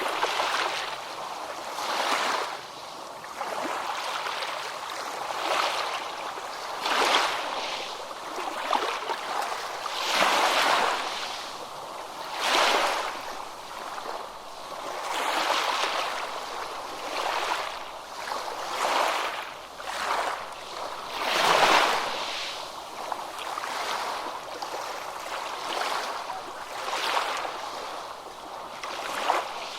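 Ocean waves breaking on a beach: a continuous surf hiss that swells and fades every one to three seconds as waves wash in.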